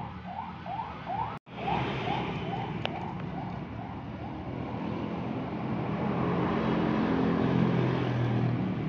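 Street noise. A siren-like electronic whoop, rising in pitch and repeated about three times a second, is cut by a brief dropout about a second and a half in and fades out by about three seconds. Then the low hum of a motor vehicle swells near the end.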